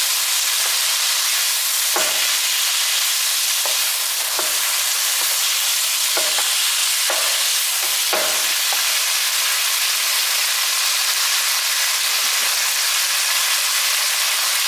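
Chicken and sliced onion sizzling steadily in a non-stick frying pan. A plastic spatula stirs them, its strokes against the pan heard several times up to about nine seconds in, after which only the sizzle goes on.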